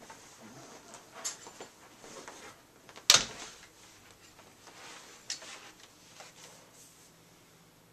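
A person moving about in a small room: rustling and a few knocks, the loudest a single sharp knock about three seconds in.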